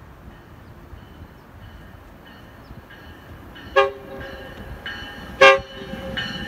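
Metrolink commuter train's horn giving two short toots about a second and a half apart as the train approaches. Under them a steady whine from the oncoming train grows louder.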